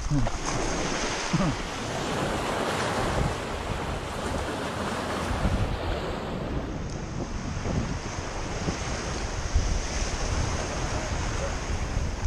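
Sea surf washing onto a rocky, pebbly shore, with wind buffeting the microphone as a low rumble.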